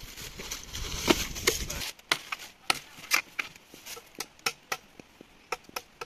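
Bamboo being chopped with a blade: sharp, uneven strikes, about two or three a second. A steady rushing noise under the first two seconds cuts off abruptly.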